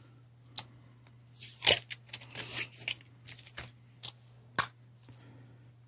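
Hands handling plastic coin packaging: scattered short clicks and crinkles, with the loudest click a little under two seconds in and a cluster of crinkly sounds just after.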